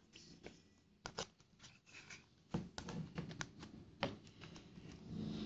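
Faint, scattered clicks and taps of a plastic measuring cup and bowl being handled while thick glue is poured in. The sharpest taps come about a second in, midway, and about four seconds in.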